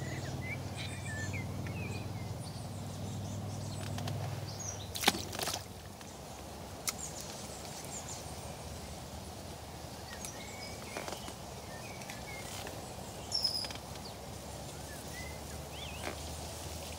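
Small birds chirping intermittently over a steady low hum that fades out about four seconds in, with one sharp click about five seconds in.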